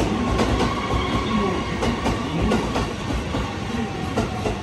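A train moving through a station, its wheels clicking over the rail joints over a steady whine and rumble.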